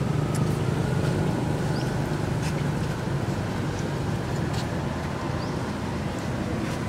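Steady low rumble of motor traffic, with a few faint, brief high chirps.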